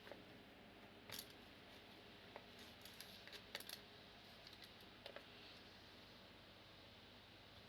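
Near silence, with a few faint, scattered small clicks and taps of light handling.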